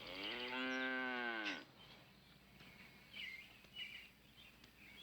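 A cow mooing once, a single long moo of about a second and a half that drops in pitch as it ends.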